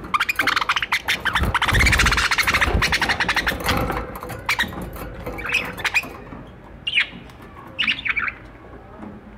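Budgerigars chattering and squawking: a dense, rapid stream of high chirps for the first few seconds, then a handful of short, separate calls that die away near the end.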